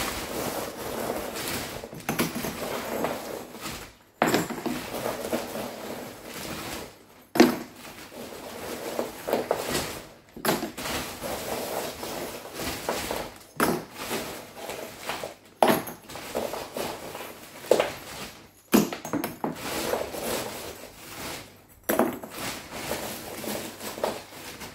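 Ceramic bio-media rings being thrown by hand into a Bakki shower tray, clattering and clinking against each other and the tray in irregular knocks, the loudest about seven seconds in.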